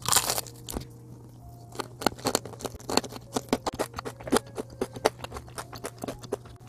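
A person biting into seasoned fried chicken, a loud crunch at the start, then chewing with many quick wet mouth clicks and smacks.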